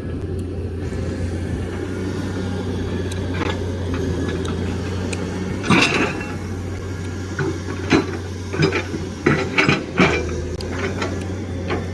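Excavator's diesel engine running steadily, with sharp metallic clanks: one about halfway, then a quick cluster of several near the end.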